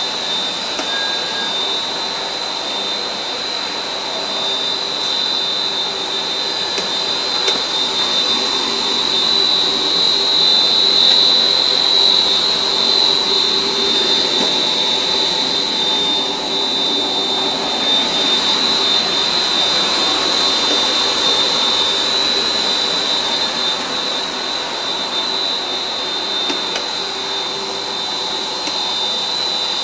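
SJ55 PE film blowing machine running: a steady mechanical noise with a strong high-pitched whine held on one pitch.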